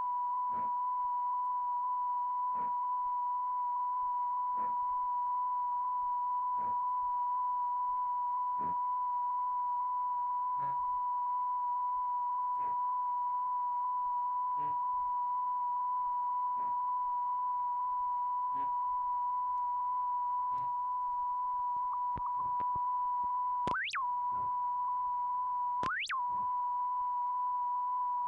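Steady 1 kHz sine test tone filling the audio track of old silent news film. A faint click comes about every two seconds, and the tone briefly chirps upward twice near the end.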